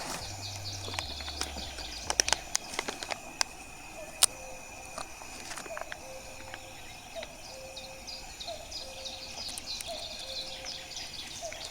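Birds singing: one bird repeats a low two-note call about once a second from midway on, over higher chirps of other birds. A few sharp clicks sound in the first few seconds.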